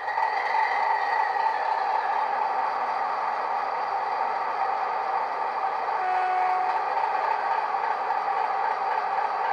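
Digital sound-decoder recording of a Class 60 diesel locomotive's Mirrlees V8 engine, played through a small 25x25x7mm megabass speaker in a Hornby model: the engine sound runs steadily, with a brief faint tone about six seconds in.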